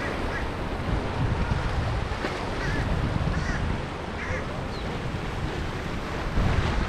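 Strong wind buffeting the microphone over the wash of surf as a storm comes in, with a handful of short bird calls, like quacks or squawks, cutting through now and then.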